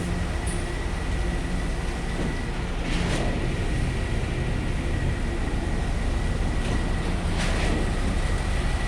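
Truck-mounted concrete pump running: a steady low engine drone with a thin high whine, and two short rushing surges about four seconds apart.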